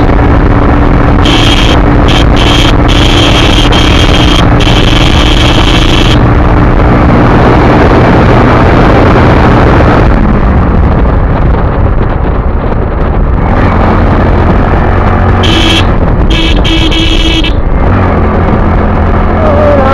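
Motorcycle engine running while riding, mixed with loud wind and road noise on the microphone. About halfway, the engine note drops as the bike eases off and slows.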